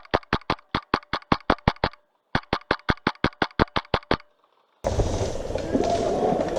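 Wolverine MTW HPA airsoft rifle firing two rapid strings of shots, about seven a second, with a short break between them. From about two-thirds of the way in, a loud, steady rumbling hiss takes over, like wind or handling noise on the microphone.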